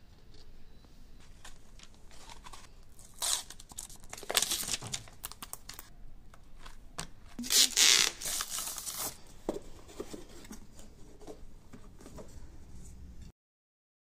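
Protective plastic film peeled off a shadow-box frame's clear front panel, in short tearing rasps, the longest and loudest a little past the middle, between light clicks and taps from handling the frame and the wooden puzzle. The sound cuts off suddenly near the end.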